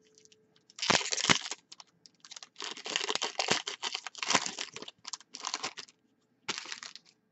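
Foil wrapper of a hockey trading-card pack being torn open and crinkled in the hands, in a run of crackling bursts over several seconds, with one more short rustle near the end.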